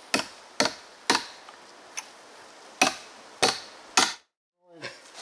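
A hammer striking wood about seven times at uneven intervals, each blow a sharp knock. The sound cuts off suddenly near the end.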